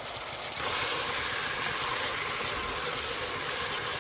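Yogurt-marinated chicken sizzling in hot oil in a pan as it releases its juices, a steady hiss that gets louder about half a second in.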